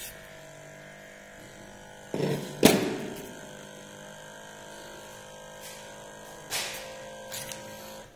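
Digital blood pressure monitor's small electric pump running with a steady hum as it inflates the arm cuff, cutting off at the end. Two brief bumps of handling stand out, about two seconds in and again about six and a half seconds in.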